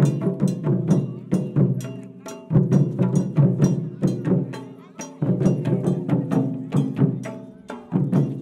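Ho festival dance music played on drums: quick, even strokes at about four or five a second, with a heavier deep surge returning about every two and a half seconds.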